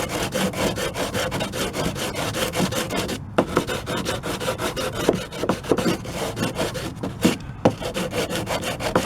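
Hand sanding: sandpaper stapled to a wooden block rubbed back and forth over dried wood putty on a wooden door frame, in quick scraping strokes of about five a second, with short pauses about three and seven seconds in.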